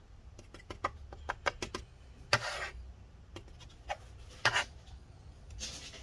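Hand-tool work on a laptop's glued-in battery: scattered light clicks and taps, and three short scratchy strokes about two seconds apart.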